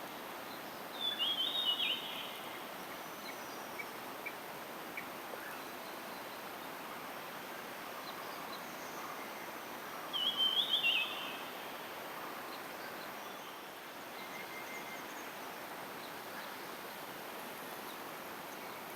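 Steady rush of falling water from the dam and waterfall, with a bird singing a short, rapid, high-pitched phrase twice: about a second in and again about ten seconds in.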